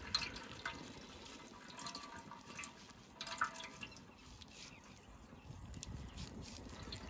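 Cooking oil heating in a pot over a wood-fired clay stove, crackling faintly with irregular small pops and spits.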